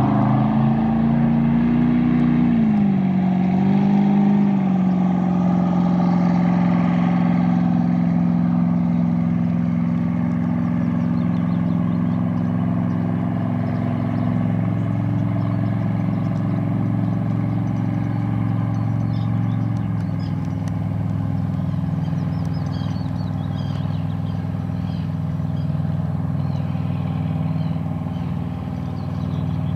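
Baja 240 boat's V8 engine running steadily. The pitch falls a little about three seconds in after a rev, then holds, and drops slightly again about twenty seconds in.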